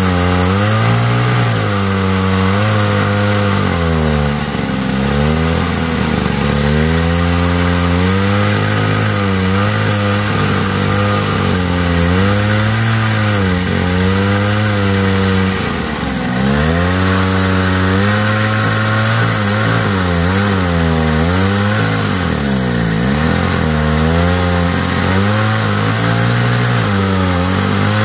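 Hydraulic pump drive of a 1/8-scale Cat 390F RC excavator running without a break, its pitch dipping and recovering again and again as the boom, arm and bucket work under load while digging.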